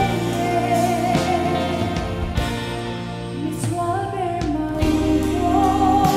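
A woman singing a Mizo gospel song solo into a microphone, holding long notes, over an accompaniment with bass and drums.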